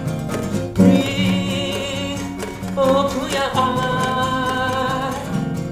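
Singing over a nylon-string classical guitar: a singer holds two long notes with vibrato, the first starting about a second in and the second about three seconds in, over steady guitar accompaniment.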